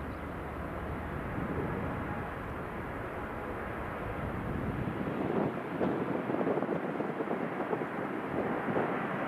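Boeing 787-9 airliner's jet engines heard from a distance as a steady rushing roar, which grows louder and rougher, with a crackle, about five seconds in as the aircraft runs up for takeoff.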